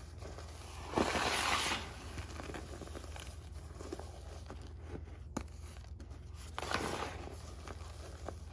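Hands squeezing and crumbling clumps of powdery reformed chalk and baking soda. Two longer soft crunches come about a second in and again near the end, with small crackles and crumbs falling in between.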